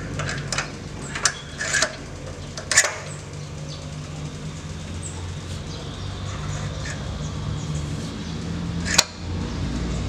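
Small metal clicks and clinks as a carburetor is handled and slid onto the intake studs of a GX160-type small engine: a few clicks in the first three seconds and a sharper one near the end. A steady low hum runs underneath.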